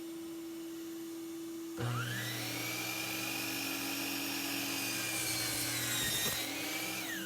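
SawStop job site table saw switched on about two seconds in, its whine rising as the motor comes up to speed, running and cutting birch plywood for about five seconds, then switched off near the end with the pitch falling as the blade spins down. A steady hum sits under it throughout.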